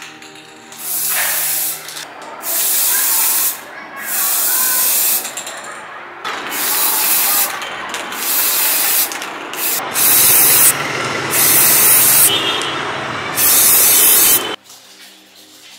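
Aerosol spray-paint can hissing in a series of short bursts, about a second each with brief pauses, as lamp parts are spray-coated. The spraying stops abruptly about a second before the end.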